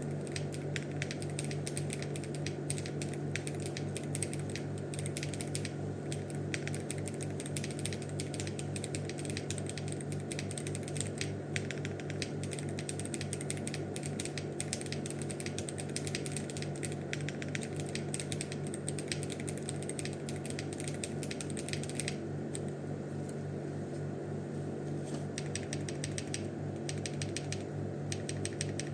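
Fast, continuous typing on a foamless acrylic Hall-effect mechanical keyboard with Owlab Ti HE switches and ABS doubleshot Cherry-profile keycaps: a dense run of keystroke clacks. The typing slows to a few scattered strokes for a few seconds about two-thirds of the way in, then picks up again, over a steady low hum.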